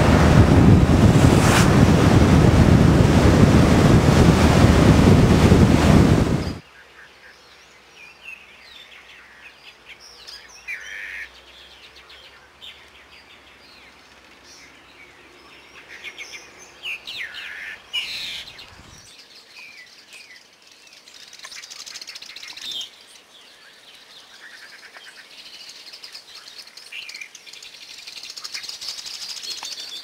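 Loud wind rush on the microphone of a vehicle moving along a road, cutting off abruptly about six seconds in. Then faint scattered bird chirps and short calls come and go in several brief clusters.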